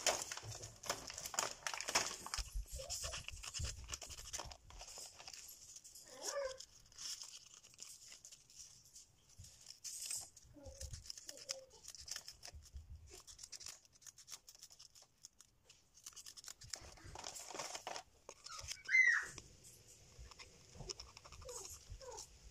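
Scissors snipping through a plastic nail-sticker sheet, with small clicks and crinkles of the sheet and the plastic tray. A dog whimpers briefly a few times, loudest a little before the end.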